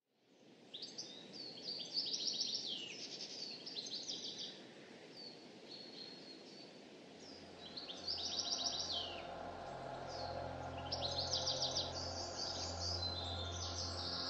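Birds chirping in quick repeated trills and short down-sweeping calls, fading in from silence at the start. A soft background music track with steady low notes comes in about halfway through.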